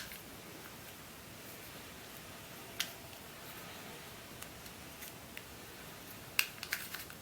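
Sharp plastic clicks from a Rubik's UFO twisty puzzle being handled and turned: one click about three seconds in, a few faint ticks, then a quick run of clicks near the end.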